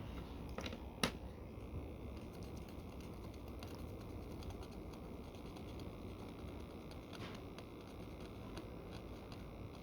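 Faint light taps and scrapes of a small hand tool against the phone as the old screen's adhesive residue is cleaned off, with a sharper click about a second in and another near seven seconds.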